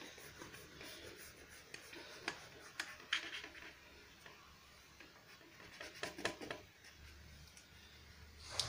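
Knife blade drawn through a soft sponge cake in a baking tray: faint scratching as it cuts, with a few light clicks where the blade touches the tray and a slightly louder one near the end.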